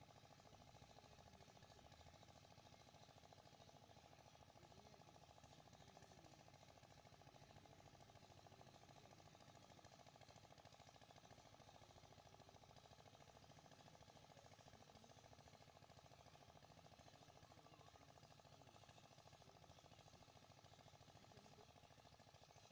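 Near silence: a faint, steady hiss and hum with no distinct events.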